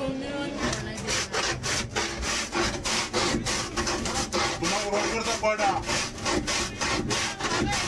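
A block of ice is scraped back and forth over the fixed blade of a wooden hand ice shaver, shaving ice for a gola. It makes rapid rasping strokes, about three or four a second.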